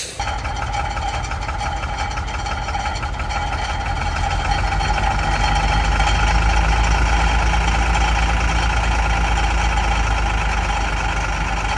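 Heavy truck engine idling, a steady low-pitched running sound with a clattering, knocking edge. It grows somewhat louder after a few seconds.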